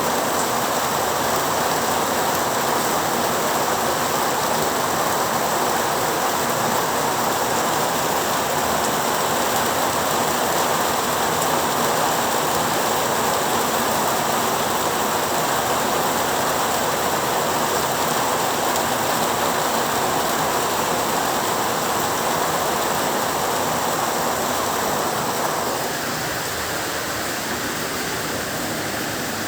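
Heavy rain falling steadily, a dense even hiss of drops with no thunder; it eases a little near the end.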